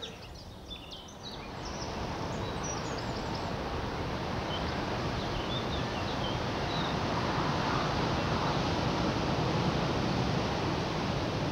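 A gust of wind rushing over the microphone, building up about a second and a half in and then blowing steadily.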